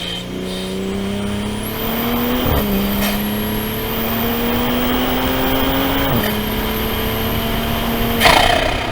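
Toyota GR Supra (A90) accelerating hard, heard from inside the cabin: the engine note climbs and drops at two upshifts, about two and a half and six seconds in, while a high whistle rises above it. About eight seconds in the engine note cuts off with a short loud burst as the throttle is lifted.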